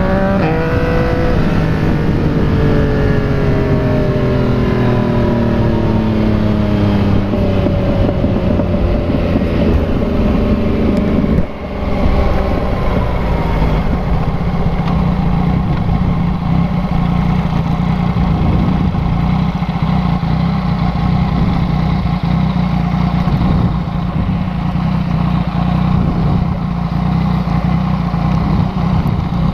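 Yamaha MT-09 inline-three engine through a replica Akrapovic exhaust. It is revved at first, then its pitch falls steadily over several seconds as the bike slows, with a brief drop in sound about eleven seconds in. It then settles into a steady low idle.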